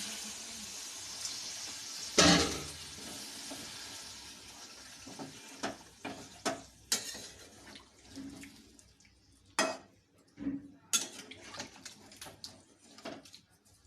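Hiss of water just added to a hot curry pan, dying away over the first few seconds. A loud metal clank comes about two seconds in, then scattered clinks and knocks of a spoon against the pot.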